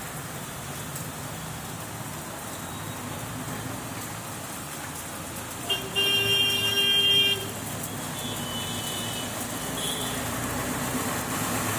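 Steady street traffic noise, with a vehicle horn sounding once for about a second and a half around six seconds in.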